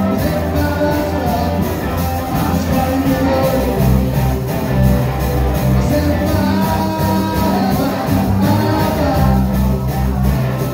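Live rock band playing loud: a steady drum beat, bass and electric guitar, with a singer's voice over it.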